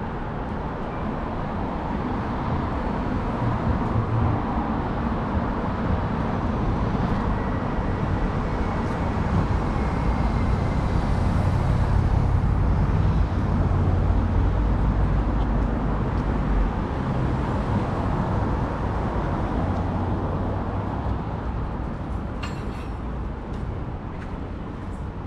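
City street traffic: a motor vehicle's low rumble builds to its loudest around the middle and fades away again, with a few sharp clicks near the end.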